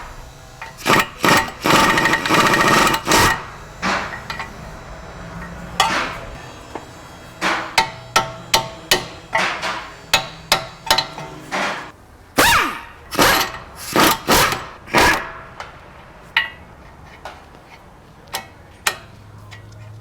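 Repeated sharp metal-on-metal strikes with a ringing tail: a hammer or tool working the rusted upper strut bolts and knuckle of an '08 Ford Edge's front suspension. There is a dense rattling run about a second in, then single blows about one or two a second.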